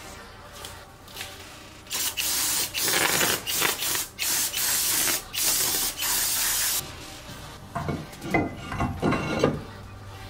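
Aerosol cleaner sprayed through a straw nozzle onto a bare wheel hub in several hissing bursts with short breaks, cleaning the hub face.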